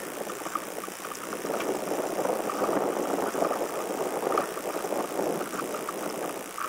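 Wind and road noise from riding a road bike along an asphalt path, picked up by a bike-mounted camera: a steady rushing that rises and falls with the wind, with faint scattered ticks.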